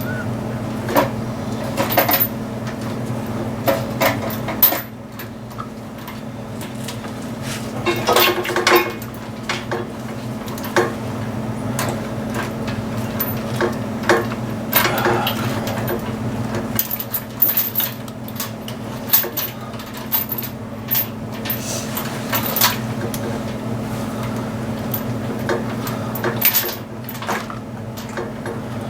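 Metal tools and bolts clinking and tapping irregularly as a bolt is fitted during engine work, over a steady low hum.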